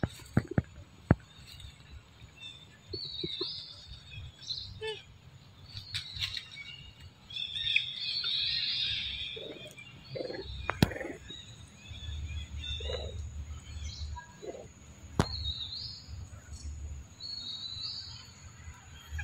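Birds chirping in short bursts throughout, with a few sharp clicks and a low rumble in the second half.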